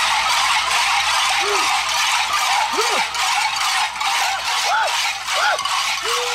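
Many cowbells worn by running masked dancers clanging together in a dense, continuous metallic jangle. Short cries rising and falling in pitch sound over it every second or so.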